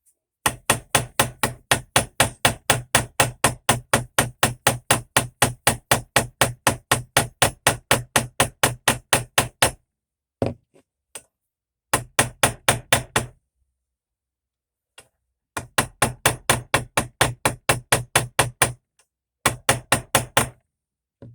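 Small hammer tapping on metal, peening the pivot pin of a folding knife. The blows come quickly and evenly, about four a second, in several runs separated by short pauses.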